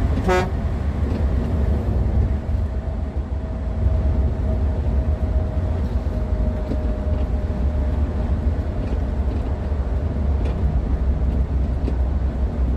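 A moving vehicle's steady low engine and road rumble, with one very short horn honk right at the start. A faint whine sinks slowly in pitch over the first several seconds.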